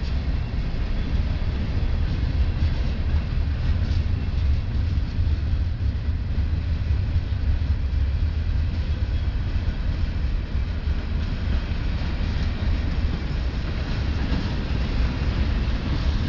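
Ferromex train rolling past with a steady low rumble; no horn is sounding.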